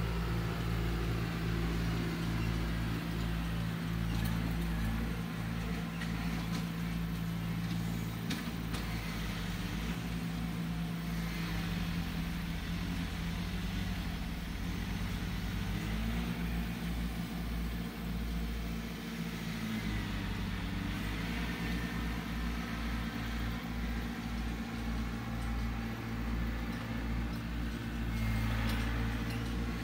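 The engine of an earth-moving machine running steadily, with its pitch rising and falling a little now and then as it works.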